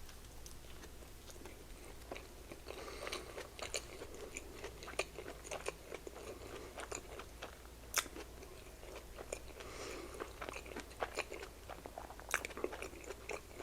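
Close-miked chewing of mini slider burgers: soft, wet mouth sounds with many small irregular clicks, and a couple of sharper clicks about eight and twelve seconds in.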